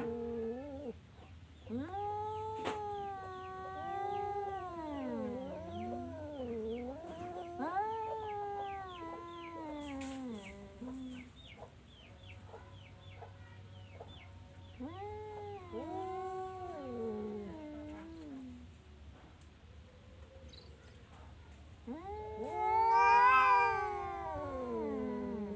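Orange cat yowling in long, drawn-out, wavering calls that rise and fall in pitch, three or so in a row, the last near the end the loudest.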